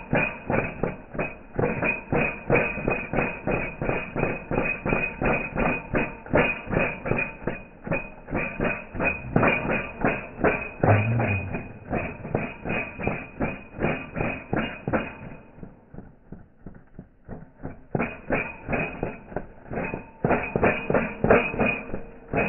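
Music with a fast, regular plucked-string beat, which drops out for about two seconds in the last third and then picks up again.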